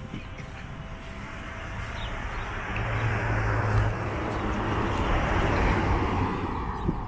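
Pickup trucks and cars passing close by on the road: engine hum and tyre noise swell up over a few seconds and then fade near the end.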